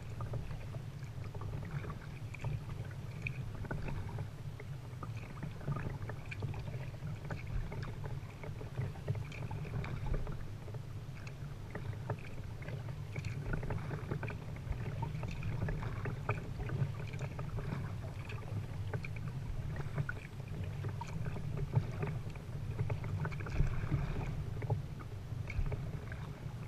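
Kayak being paddled: small irregular splashes and drips of the paddle blades and water lapping at the hull, over a steady low rumble.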